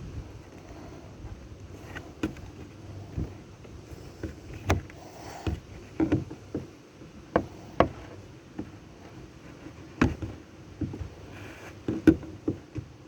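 Irregular clicks, taps and knocks of hand tools working a piece into a vinyl window sash, some sharp and louder, coming a second or so apart.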